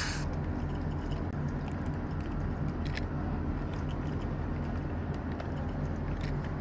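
Model diesel locomotive's DCC sound-decoder engine running with a steady low hum, over scattered light clicks of the train running on its track.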